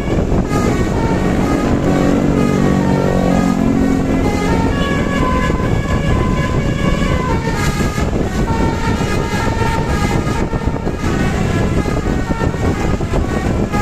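A bus's basuri telolet horn playing a quick tune of high notes that step up and down in pitch, over steady background noise. A lower chord of notes sounds along with it for the first few seconds.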